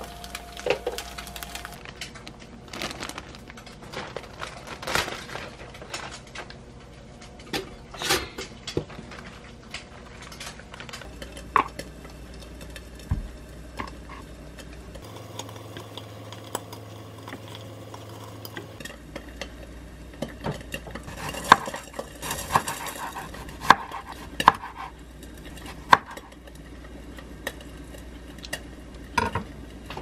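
Kitchen work sounds: light clinks and knocks of a frying pan and utensils, then a kitchen knife slicing a tomato on a wooden cutting board, the blade tapping sharply on the board several times in the second half.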